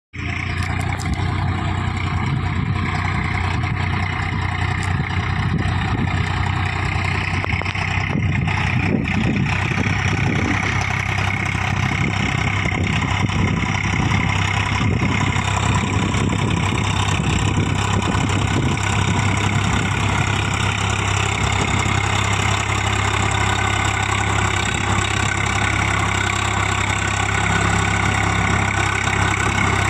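Swaraj 855 tractor's three-cylinder diesel engine running steadily while its front dozer blade pushes soil across a ploughed field.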